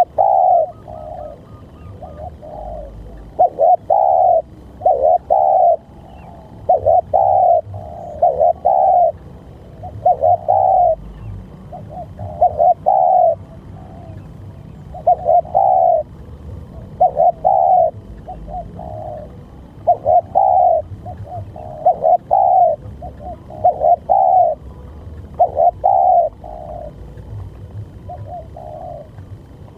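Spotted dove cooing: loud phrases of two or three notes repeated about every two seconds.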